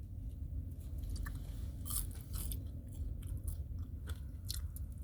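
Close-up chewing and mouth sounds of someone eating, with scattered short wet clicks and smacks, over a steady low hum.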